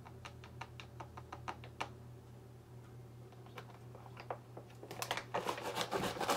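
Scattered light clicks and taps that turn into denser crinkling and clicking about five seconds in: a plastic water bottle being handled and squeezed. A faint steady low hum runs underneath.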